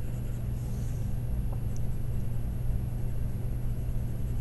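Steady low hum of room background noise, with faint scratching of a pencil shading on drawing paper.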